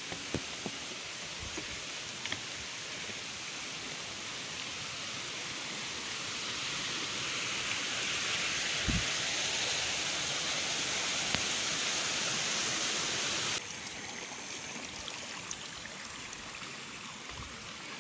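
Running stream water rushing steadily, swelling louder over several seconds and then dropping abruptly about three-quarters of the way through to a fainter rushing. A few soft knocks are heard over it.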